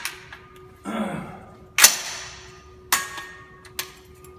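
AR-15 rifle in .223 fired three times in quick succession, about a second apart, the first shot the loudest, each crack echoing briefly off the concrete walls of an indoor range booth.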